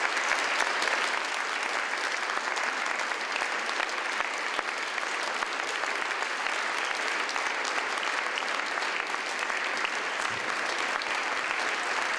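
A large audience applauding steadily, many hands clapping at once.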